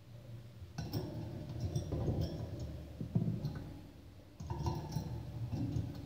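A budgie moving about in its cage, making knocks and small clinks on the perch and hanging toys, in two spells starting about a second in and again past four seconds.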